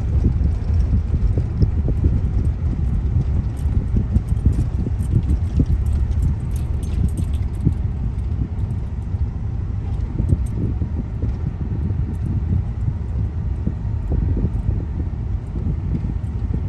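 Steady low rumble of a moving car heard from inside the cabin, with light rattles and clicks over it.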